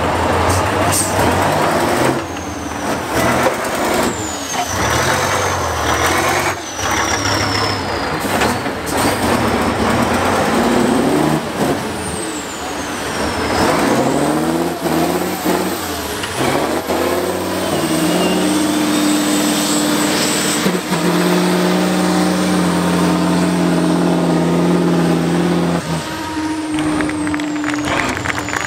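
Tatra trial truck's diesel engine revving hard under load as it crawls and climbs a steep muddy section. The pitch swings up and down with some knocks and high whistling glides, then holds at high revs for several seconds before dropping off suddenly near the end.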